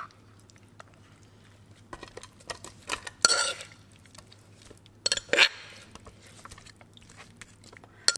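Metal spoon scraping and clinking against a clay mortar while wet papaya-and-seafood salad is scooped out onto a plate. There are scattered light knocks and a few short scrapes, the loudest about three seconds in and again about five seconds in.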